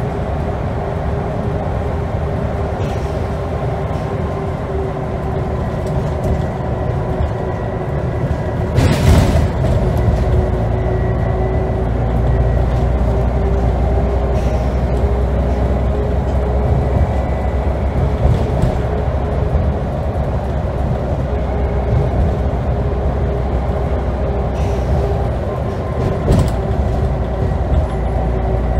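Scania N94UD double-decker bus heard from inside the upper deck while under way: a steady engine drone and road rumble with a constant whine running through it. A single jolt or thump about nine seconds in, after which the low rumble is stronger.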